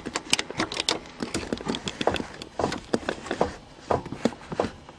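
Ford Thunderbird's starter clicking irregularly, several clicks a second, as the key is turned, without the engine cranking. The owner can't tell whether the starter motor or the battery is at fault.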